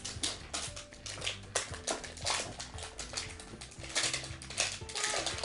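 Plastic toy packaging crinkling and crackling in rapid, irregular clicks as it is handled and unwrapped.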